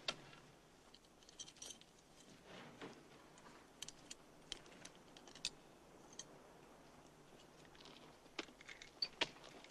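Faint, scattered light clicks and clinks against a quiet background, several stronger ones near the end.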